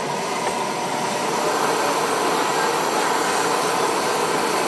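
Steady, loud rushing noise of running machinery, with a faint steady whine riding on it.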